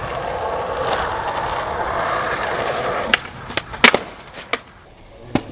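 Skateboard wheels rolling over rough asphalt, then a run of sharp clacks, the loudest about four seconds in, as the board pops and hits the pavement and the rolling stops.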